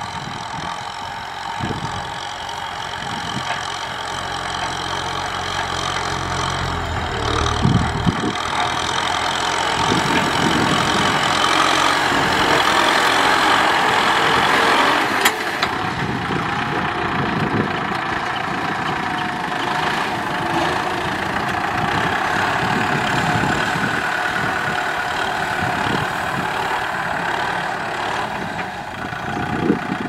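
Kubota M6040SU tractor's four-cylinder diesel engine running steadily under load, pulling a disc harrow through dry stubble. A sharp click comes about halfway through.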